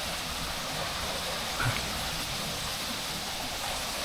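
Steady rushing noise with no clear pitch or rhythm, and one faint short blip about a second and a half in.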